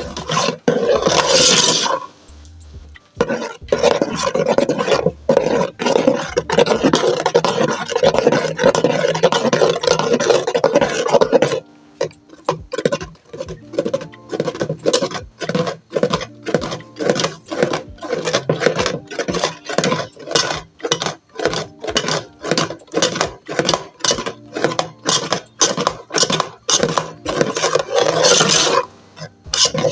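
A spoon scraping and stirring in a pot: a dense stretch of continuous scraping for the first few seconds, then quick, separate strokes against the pot's sides, several a second.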